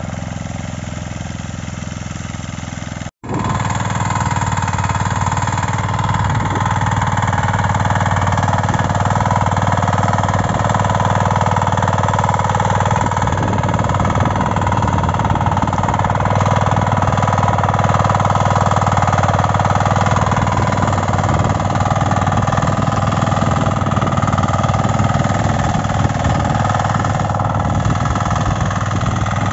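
5.5 hp diesel power weeder engine running steadily as its rotary tines till dry soil. The sound drops out for an instant about three seconds in, then returns louder and holds steady.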